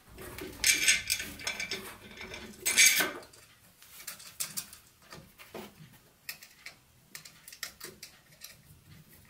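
Clatter of metal parts being handled on a workbench, loudest in the first three seconds, then scattered small clicks and taps as wire connectors are fitted to a homemade chainsaw's motor assembly.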